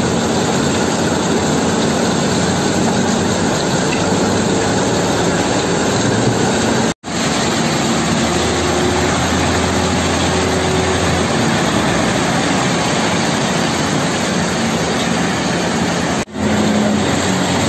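Concrete mixer truck's diesel engine running steadily while its drum turns to discharge, with wet concrete sliding down the chute into a tremie hopper. The sound drops out for an instant twice, about seven seconds in and near the end.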